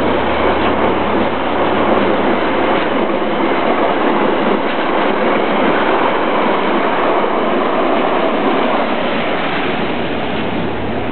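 Passenger train accelerating past, its carriage wheels running on the rails in a loud, steady rumble; a low engine hum dies away in the first few seconds.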